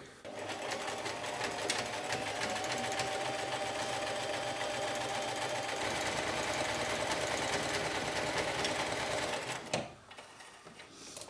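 Domestic electric sewing machine stitching a wide zigzag along a T-shirt's raw seam edge to finish it against fraying. It picks up speed over the first couple of seconds, runs steadily, and stops near the end.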